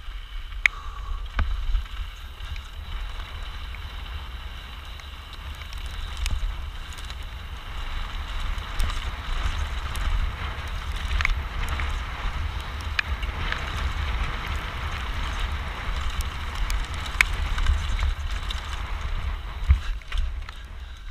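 Mountain bike descending fast on a rough trail: wind rumbling on the action camera's microphone over a steady hiss of tyres on gravel and rock, with occasional sharp knocks from stones and the bike.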